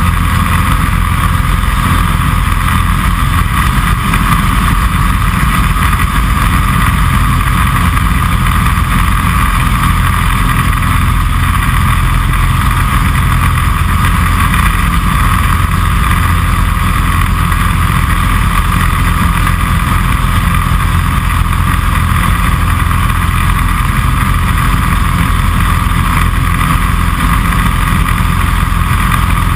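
Kitfox Series 5 light aircraft's engine and propeller running steadily in flight, heard from inside the cockpit as a loud, unchanging drone.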